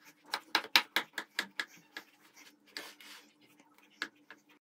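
Kitchen knife sawing down through a stack of thin flatbreads spread with meat topping: a quick run of scraping strokes, about five a second, then a longer rasp and a sharp click near the end.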